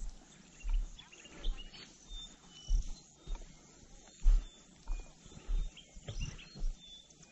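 Footsteps of a person walking on dry ground, a low thump about one and a half times a second, with faint short high chirps in the background.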